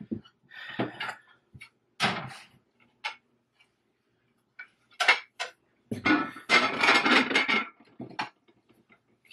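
Ceramic dinner plates clinking and knocking as they are handed down and stacked into a cardboard box, with a longer stretch of clattering about six seconds in.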